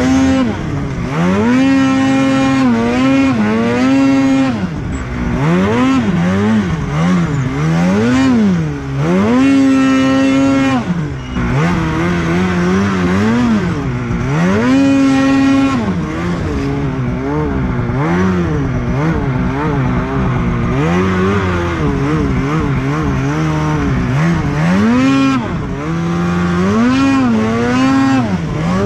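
Snowmobile engine revving up and down over and over while the sled is ridden through deep snow between trees, its pitch climbing and dropping every second or two.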